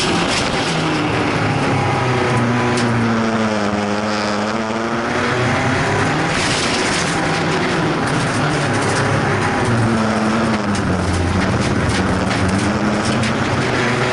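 Folkrace car's engine heard from inside the stripped cabin, driven hard: its pitch drops about three seconds in and climbs again, then dips and rises once more later on. Short knocks and rattles are scattered through it.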